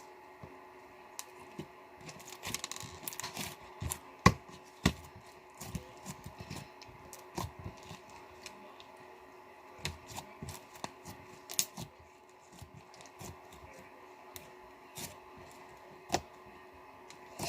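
Slime being squished and poked by hand, giving irregular sticky clicks and pops, with a denser crackling stretch a couple of seconds in.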